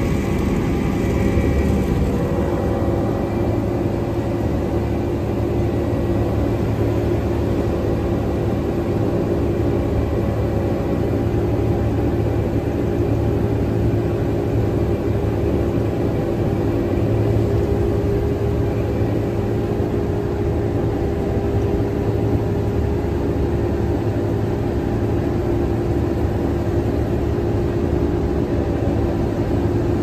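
Claas Lexion 560 combine harvester running under load while harvesting soybeans, heard from inside the cab: a steady engine and threshing drone with a constant low hum that does not change.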